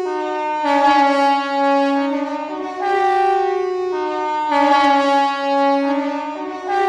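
KTG-10 compressed-air siren sounding the Swiss General Alarm. Its loud horn-like tone switches back and forth between a lower and a higher pitch about every two seconds.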